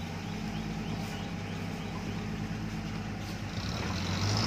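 Off-road 4x4's engine running steadily on a rocky climb, getting louder with a rising hiss near the end.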